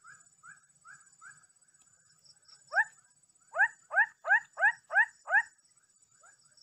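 An animal calling in a run of short rising calls: softer ones about twice a second, then a louder string of seven, about three a second, through the middle. A steady high whine runs behind them.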